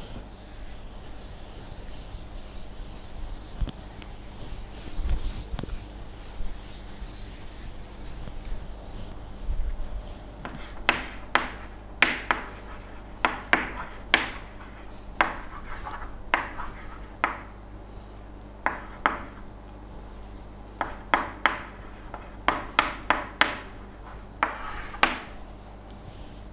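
Handwriting: a pen or marker scratching out short, irregular strokes, which come thick and fast in the second half, over a steady low electrical hum.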